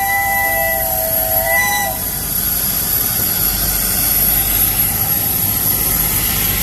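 Pacific-type steam locomotive's whistle, several tones sounding together, sliding down and cutting off about two seconds in. It is followed by a steady rushing noise from the passing train.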